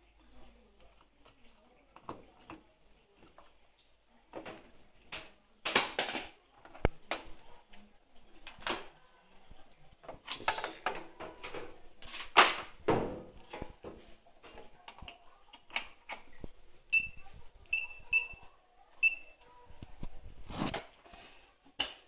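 Irregular clicks, knocks and rustling of parts and tools being handled, with a quick run of about five short, high electronic beeps about three-quarters of the way through.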